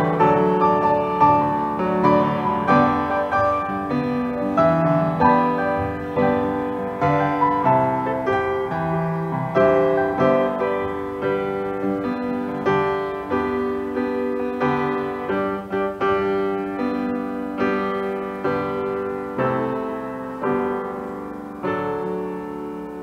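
Solo grand piano playing a piece, each struck chord ringing and fading, the playing growing gradually softer toward the end.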